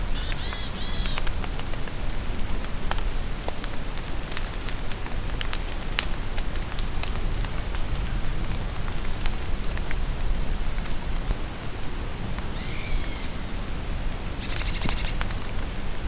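Steady rain falling in a forest, with scattered drops ticking and small songbirds calling: a short burst of song about half a second in, and two more calls near the end, the last a fast trill.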